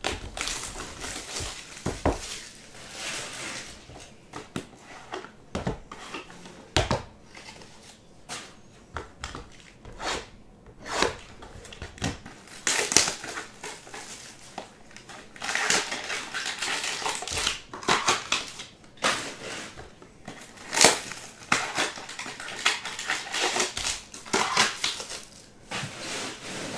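Plastic shrink wrap and foil card packs being torn, crumpled and handled as a sealed trading card box is opened: irregular crackling and rustling with scattered sharp clicks and knocks.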